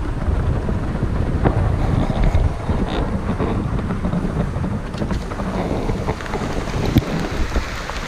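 Rain falling on a parked pickup truck, heard from inside the cab: a steady dense rush with a low rumble and scattered small ticks of drops.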